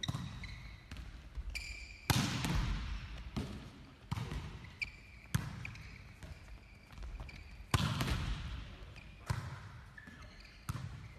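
Volleyball impacts echoing in a sports hall: about eight sharp smacks at uneven spacing, a second or two apart, the loudest a couple of seconds in and near two thirds through, with brief high squeaks of court shoes on the floor between them.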